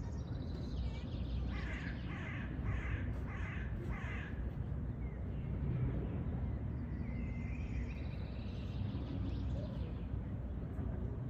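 A bird calling harshly five times in quick succession, a little over half a second apart, followed by softer chirping from other birds over a steady low rumble.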